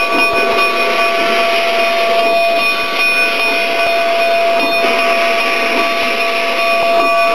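K-36 narrow-gauge steam locomotive blowing steam out low around its cylinders: a steady, loud hiss with a faint steady whine over it.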